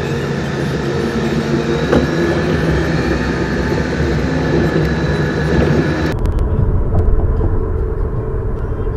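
Steady road and engine noise of a car driving on a freeway, heard from inside the cabin through a dashcam's microphone. About six seconds in, the sound changes abruptly, turning duller and deeper.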